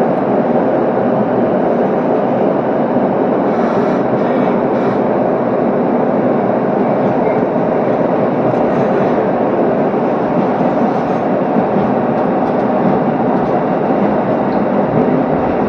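Commuter train running at speed between stations, heard from inside the passenger car: a steady rumble of wheels on the rails and the running gear.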